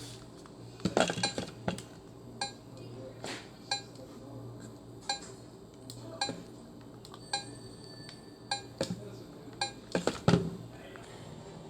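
Irregular light clinks and taps of small hard objects, some with a brief ringing tone, about a dozen over the stretch, with a busier cluster about a second in and another near the end, over a low steady hum.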